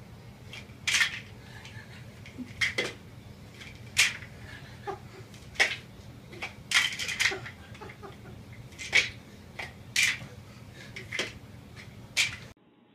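About ten sharp slaps at irregular intervals, a hand striking against the top of a stainless steel fridge and at a cat perched there, stopping abruptly near the end.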